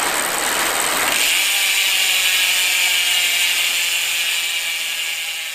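Intro sound effect under a logo animation: a steady, hissing, ratchet-like whir that brightens about a second in and slowly dies down near the end.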